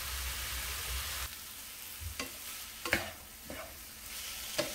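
Noodles and vegetables sizzling in an oiled pan over high heat while being tossed and mixed, with a few light knocks of a spatula against the pan.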